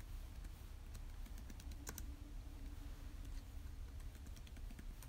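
Typing on a 2011 MacBook Air's keyboard: faint, irregular key clicks.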